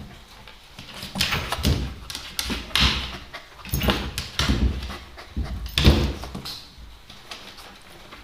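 A pet dog moving about, with a string of irregular knocks and scuffs, the loudest about six seconds in.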